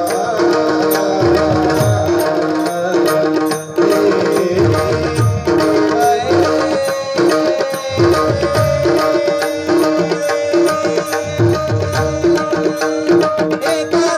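Tabla playing a steady devotional bhajan rhythm, mixing deep bass strokes with sharp ringing treble strokes. Held notes from a melody instrument sound over it in an instrumental interlude without singing.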